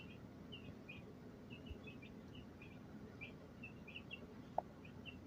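Baby chicks peeping faintly, a steady string of short high cheeps about three a second, with one soft click about four and a half seconds in.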